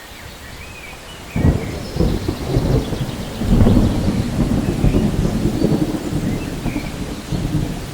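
Steady rain falling, with a roll of thunder that breaks in suddenly about a second and a half in and keeps rumbling in low swells.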